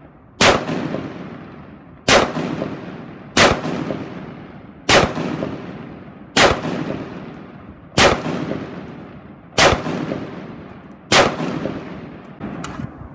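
AR-15-style rifle fired semi-automatically in slow, aimed shots: eight shots, about one every second and a half, each trailing off in a long echo.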